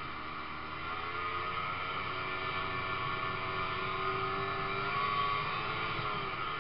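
Ski-Doo snowmobile engine running while the sled is under way, its pitch rising and falling with the throttle. It is heard from a camera mounted on the machine.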